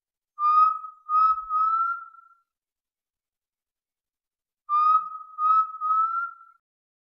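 Clear whistled notes in two identical phrases a couple of seconds apart, each phrase three notes long with the last note held longest and each note rising slightly in pitch.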